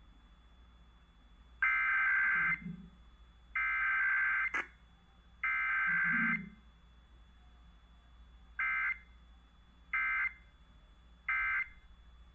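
Emergency Alert System (SAME) digital data bursts of a Required Weekly Test, played over a radio. Three buzzy header bursts of about a second each are followed a couple of seconds later by three short end-of-message bursts, with no attention tone between them. A single sharp click comes just after the second header burst.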